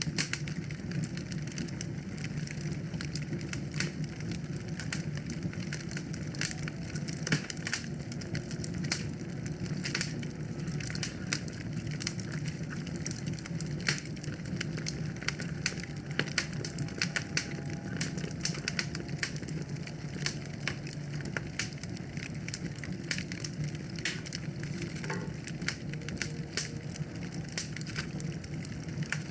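Wood fire crackling in a fireplace: irregular sharp pops and snaps over a steady low hiss of burning.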